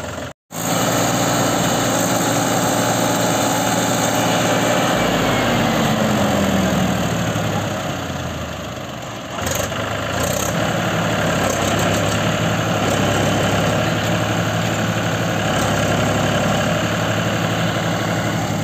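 Mahindra 275 DI tractor's three-cylinder diesel engine running while the tractor is stuck in mud with its front wheel sunk in water. Its revs sag a little after about five seconds, then pick up again about nine and a half seconds in, with a couple of short clicks, and it runs steadily to the end.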